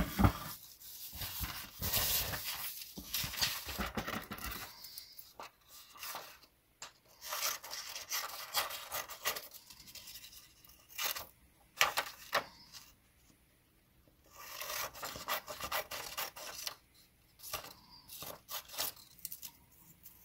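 Scissors cutting printed paper sheets into strips, in irregular snips with the paper rustling as it is handled, and a short pause about two-thirds of the way through.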